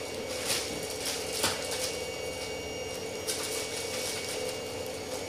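Plastic bag rustling in a few short, soft crinkles as something is pulled out of it, over a steady low hum.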